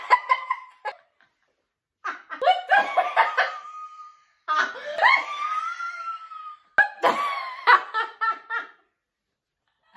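Two girls laughing hard together in repeated bursts, with a long drawn-out high laugh about halfway through.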